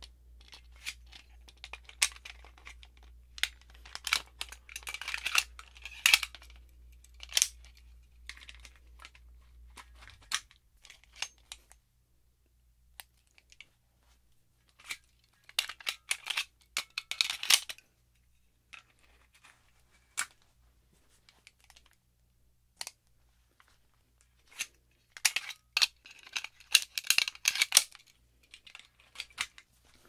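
Springfield Armory 1911 pistol being handled: clusters of sharp metallic clicks and rattles, separated by quiet gaps.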